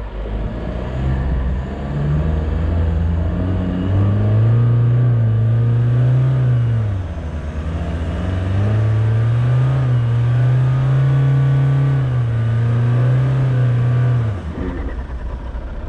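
SUV engine revving hard in a low gear as it pulls through soft sand. Its pitch climbs and holds, drops sharply about halfway through, then climbs and holds again before falling away near the end.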